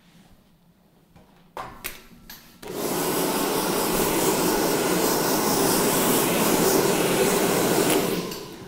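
Hand-held hair dryer switched on about two and a half seconds in, blowing steadily for about five seconds, then switched off and winding down. A couple of handling clicks come before it.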